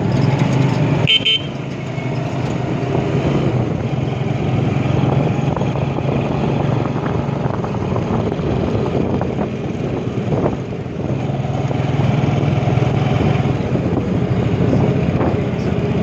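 Motorcycle engine running steadily under way, with road and traffic noise, and a short vehicle horn beep about a second in.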